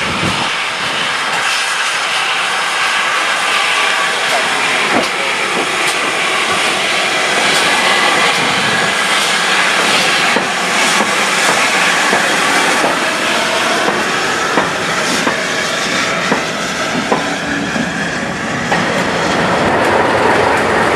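A passenger train running slowly past close by, hauled by GWR Hall class 4-6-0 steam locomotive No. 4953: steady steam hiss with irregular wheel clicks over the rail joints. Near the end the English Electric Class 37 diesel at the rear of the train comes past.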